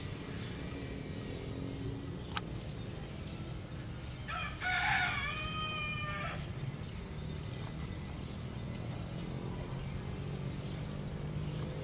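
A single drawn-out bird call, about two seconds long, near the middle, over a steady low hum. A sharp click comes shortly before it.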